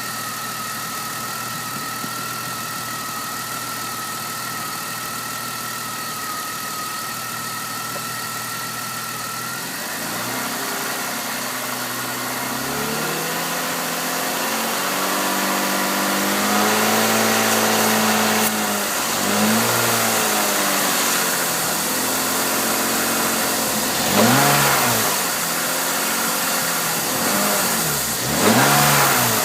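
BMW S52 inline-six engine running with Seafoam in it and an exhaust leak at the headers. A steady high whine holds for about the first ten seconds, then the engine is revved, its pitch rising and falling, with two sharp blips of the throttle near the end.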